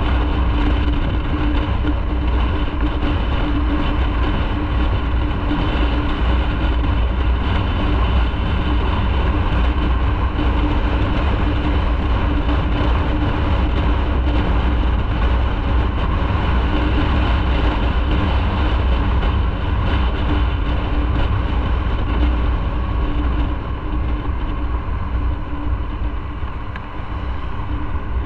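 Motorcycle running at a steady cruising speed: a steady engine drone with road and wind noise. It eases off and goes quieter for a few seconds near the end, then picks up again.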